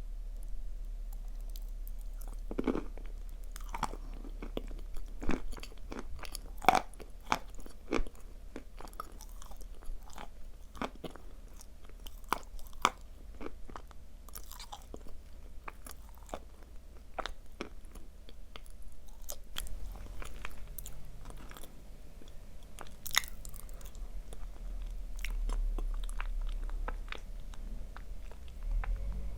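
Close-miked biting and chewing of dry Chuyskaya edible clay: a run of sharp crunches and snaps, thick in the first half and sparser later, with one louder crunch past the middle. A steady low hum runs underneath.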